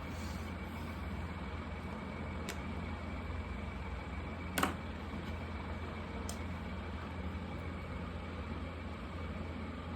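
Markers working on paper under a steady low hum and hiss, with one sharp click about four and a half seconds in and a couple of fainter ticks.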